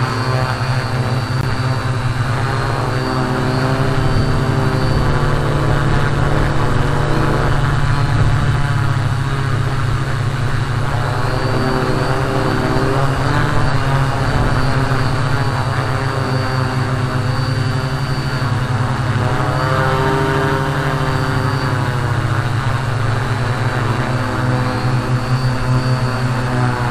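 A homemade quadcopter's four brushless motors spinning guarded propellers in flight: a loud, steady buzz whose pitch wavers up and down as the throttle changes.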